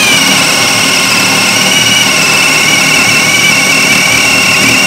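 Ryobi P251 brushless hammer drill in drill mode, running steadily under load as a spade bit bores into a wooden beam. It gives a loud, even, high motor whine.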